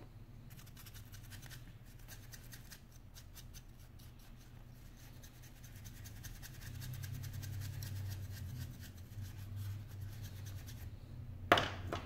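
A small brush scrubbing quickly at an opened iPhone 5's housing: a fast, dense scratching of bristles that stops shortly before the end, followed by one sharp knock, the loudest sound.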